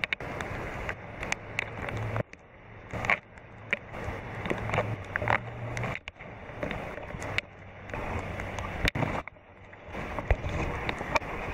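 Steady rain falling on a driveway and parked car, with irregular sharp taps of raindrops striking the camera and a low rumble of wind on the microphone.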